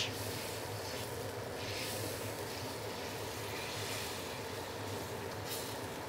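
Steady roar of a gas stove burner turned up to full flame under a wok, with the soy-and-rice-wine braising liquid bubbling around the fish. Brief splashy hisses about a second and a half in and again near the end as the liquid is ladled over the fish.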